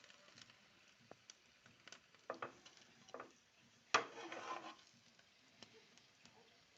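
Faint kitchen utensil sounds: scattered clicks and scrapes against cookware, with one louder clatter about four seconds in that rings briefly.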